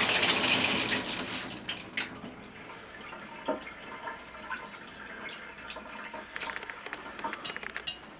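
Water running from a tub spout through a freshly rebuilt Delta 1300/1400-series shower valve, flushing air from the line; the flow is shut off about a second in and dies away over the next couple of seconds. What follows is quieter, with a single knock and, near the end, a quick run of small ticks and drips.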